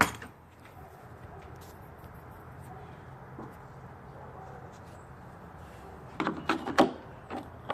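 Screwdriver prying at a rusted car trunk latch, with metal clicking and rattling. There is a sharp click at the start, then a cluster of clicks and clatter about six seconds in. The latch does not pull down, and the owner judges it dead.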